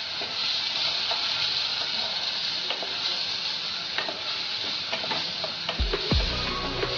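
Diced vegetables and spices sizzling in hot oil while being stirred, with a wooden spatula scraping and ticking against the pot. A few deep thuds come in near the end.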